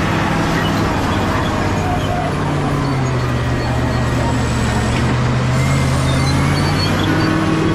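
Caterpillar D7G bulldozer's diesel engine running loud and steady. Its pitch drops for a few seconds about midway, then rises again near the end.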